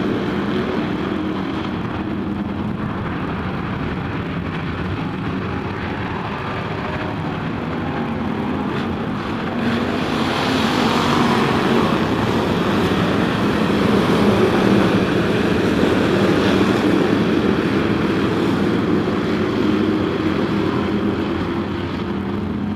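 A pack of IMCA hobby stock race cars' V8 engines running at racing speed around a dirt oval, growing louder through the middle as the field passes close, then easing off near the end.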